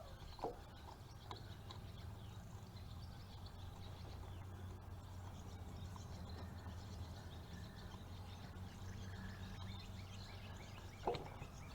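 A few faint metal clicks from a starter mounting bolt being worked into its thread by hand, over a low steady hum.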